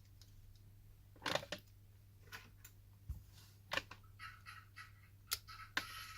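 Faint clicks and scraping from small plastic phone parts being handled during disassembly, with several sharp clicks and a scratchy scraping stretch near the end, over a steady low hum.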